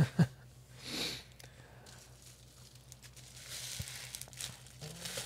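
Soft rustling and crinkling of packaging being handled, with two short thumps right at the start and a breath about a second in.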